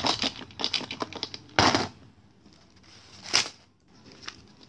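Clear plastic packets and paper slips being handled: a quick run of clicks and crinkles, then two louder rustles, one just before the two-second mark and another a little past three seconds.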